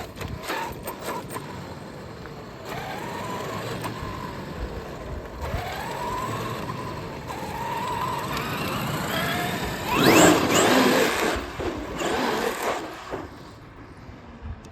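Traxxas XRT radio-controlled truck driving along a street, its brushless electric motor whining up and down in pitch with the throttle over tyre noise. About ten seconds in, a sharply rising whine and a loud rush of tyre noise mark a hard burst of acceleration. The sound fades near the end.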